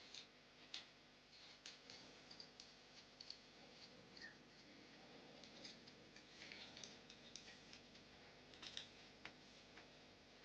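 Faint, irregular clicks and light taps of small parts being handled: copper tube connectors and wires being fitted into a plastic charger case.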